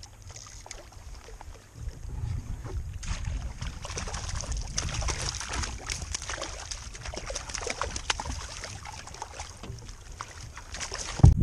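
Irregular water splashing and sloshing at a kayak, with wind rumbling on the microphone; a sharp knock near the end.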